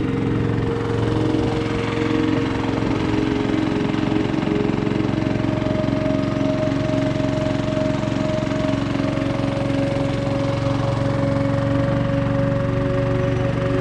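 A small engine running steadily, with a constant low hum and rapid pulsing.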